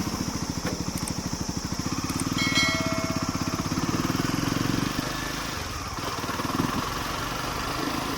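Motorcycle engine running with a fast, even pulsing beat.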